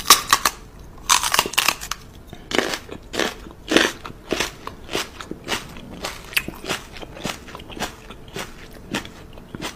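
Repeated short, wet smacking clicks of a woman's pursed-lip kisses to a small dog, coming irregularly about one to two a second and loudest in the first few seconds.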